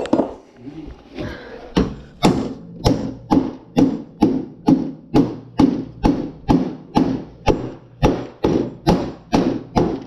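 A small hammer striking metal again and again, about two blows a second, each with a short ring, knocking at a refrigerator door hinge to free it. A few lighter knocks come before the steady hammering starts.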